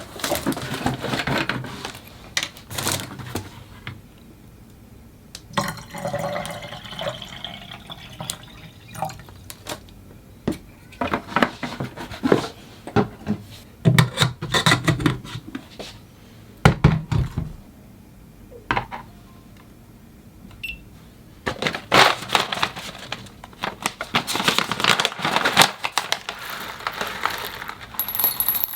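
Hand coffee preparation: a run of rattles, clinks and short pours, like dry coffee beans and utensils handled in a container, coming in separate bursts with short pauses.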